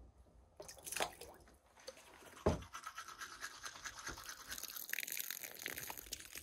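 Teeth being brushed with a manual toothbrush: quick, scratchy back-and-forth scrubbing. A single low thump comes about two and a half seconds in.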